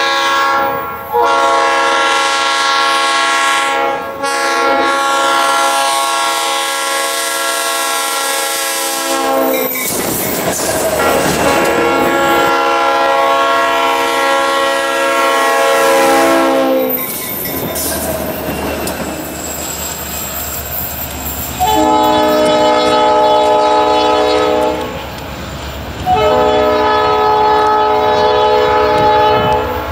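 Diesel freight locomotive horns sounding long blasts for grade crossings. In the middle, the horn fades under the rumble and clatter of the train on the rails. Near the end, a second locomotive's horn sounds two long blasts.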